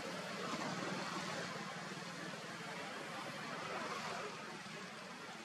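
Steady outdoor background noise, an even hiss-like hum with no distinct event standing out.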